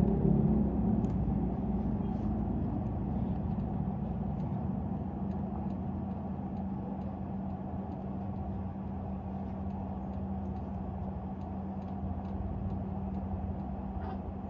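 Steady low engine rumble with a constant hum, like a motor vehicle running, slowly getting quieter over the first half and then holding steady.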